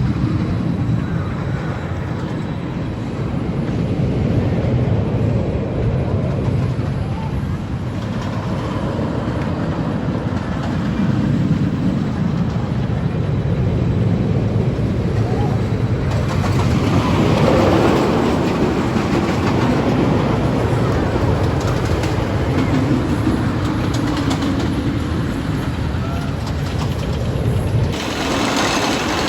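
Thunder Run wooden roller coaster train rumbling and clattering along its track, growing louder partway through.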